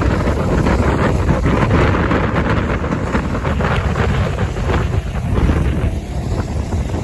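Heavy wind buffeting the microphone, with the small engines of micro F2 stock cars racing round the oval droning faintly underneath.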